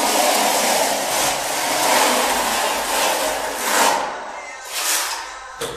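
Wide steel spatula scraping tile adhesive across a concrete floor in several long strokes.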